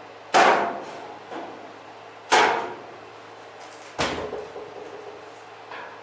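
Galvanized sheet-metal ductwork banged hard three times, about every two seconds, each bang followed by a short metallic ring as the duct section is worked loose.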